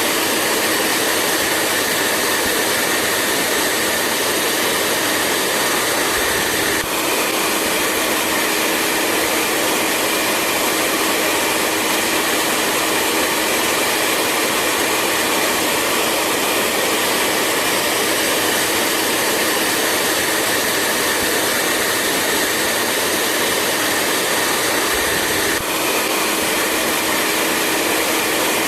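Hair dryer blowing steadily: an even rushing noise of air with a low motor hum and a higher whine. The whine shifts slightly about seven seconds in and again near the end.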